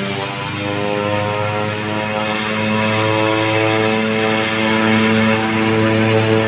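Cessna 208 Grand Caravan's single Pratt & Whitney PT6A turboprop engine and propeller as the aircraft taxis past. It is a steady droning hum of stacked tones that shifts slightly in pitch about a second in and grows a little louder as the plane comes nearer.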